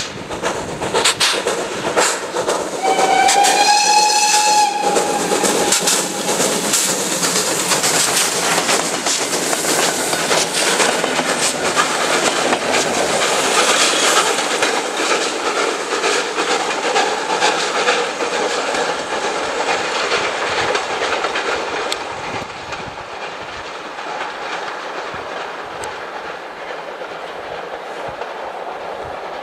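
A PKP Pt47 2-8-2 steam locomotive gives one whistle blast of about two seconds, then passes close with rapid exhaust beats, followed by its coaches' wheels clicking over the rail joints. The sound fades from about twenty seconds in as the train draws away.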